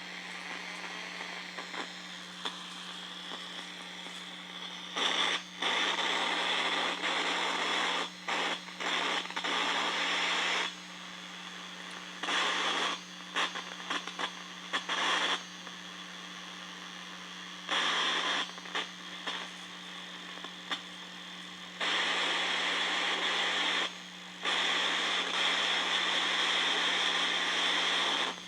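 Electronic static hiss that cuts in and out abruptly in blocks lasting from a fraction of a second to about four seconds, over a steady low electrical hum: radio-frequency interference noise of the kind picked up from pulsed radio signals.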